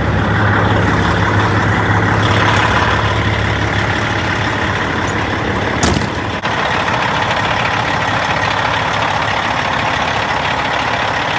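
Caterpillar C-15 ACERT diesel of a 2005 Peterbilt 379 idling steadily, with one sharp knock about six seconds in.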